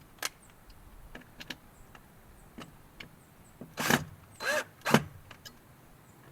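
Objects being handled on a workbench: scattered light clicks and taps, then three louder short scraping sounds, one with a brief squeak, about four to five seconds in.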